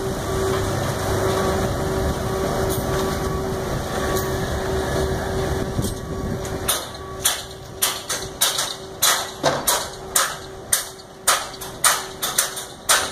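A machine runs steadily with a low rumble and a steady hum. About halfway through it gives way to sharp hammer blows on steel, roughly two a second, as the Ferris wheel's steel frame is struck during teardown.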